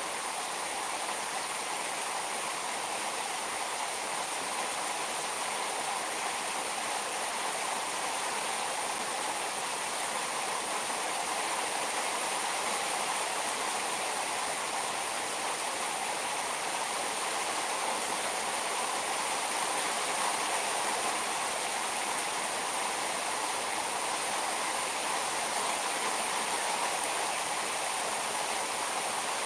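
Heavy rain pouring steadily, an even, unbroken hiss of drops falling on a shade net and a parked car.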